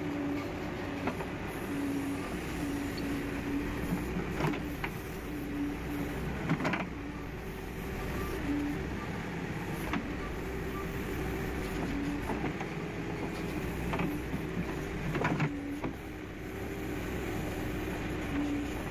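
JCB 3DX backhoe loader's diesel engine running steadily while the backhoe arm digs and swings, with a droning tone that comes and goes as the hydraulics are worked. A few sharp clanks of the bucket and arm linkage.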